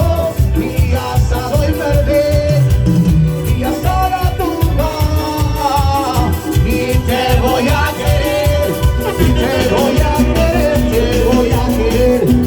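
Upbeat Latin dance music with a singer and a steady bass beat, played loud over a party sound system.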